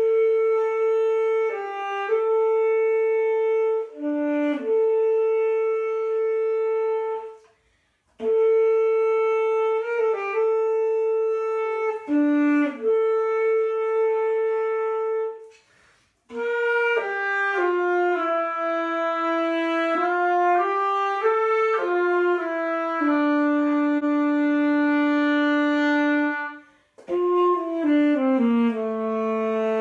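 Alto saxophone playing a slow melody of long held notes, in phrases broken by short pauses for breath about 8, 16 and 27 seconds in.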